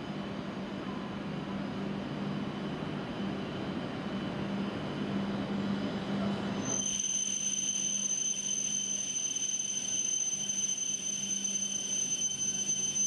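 W7 series Shinkansen train pulling into the platform with steady running noise and a low hum. About halfway through, the rumble drops away and a steady high-pitched squeal takes over as the train brakes to a stop.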